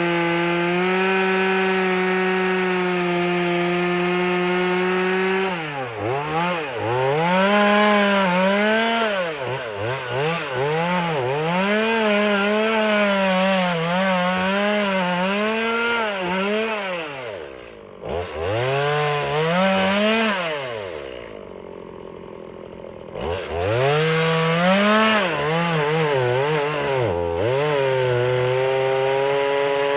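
Stihl MS180 two-stroke chainsaw cutting firewood: held at full throttle at first, then revving up and down over and over about once a second. About two-thirds through it drops briefly to a quiet idle, then goes back to full throttle.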